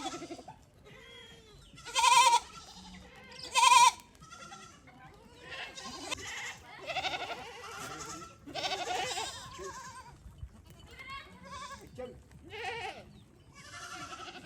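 Goats bleating: two loud, short, quavering bleats about two and four seconds in, then a string of softer bleats.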